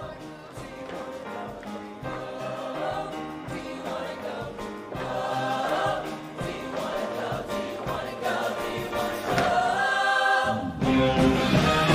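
Show choir singing with its live backing band. Near the end the bass drops out for a moment and the music comes back louder and fuller.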